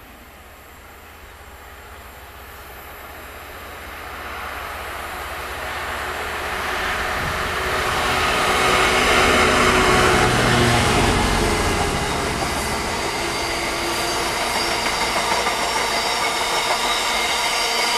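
Freightliner Class 66 diesel locomotive hauling a container freight train. Its EMD V12 two-stroke engine grows steadily louder on approach and is loudest about nine to eleven seconds in as the loco passes. The container wagons then run by with steady wheel-on-rail noise and a high ringing.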